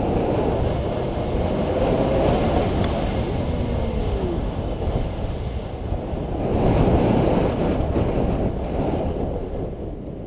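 Wind rushing over an action camera's microphone during a tandem paragliding flight: a heavy, low buffeting that swells and fades.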